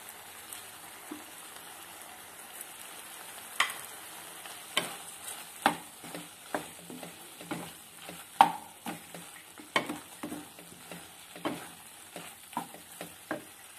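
Wooden spatula stirring and turning pieces of beef liver in a coated frying pan, knocking and scraping against the pan irregularly from about three and a half seconds in, over a faint sizzle.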